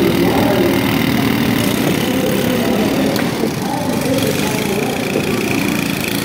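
Several small riding-mower engines running together in a steady drone, their pitch wavering as the throttles rise and fall.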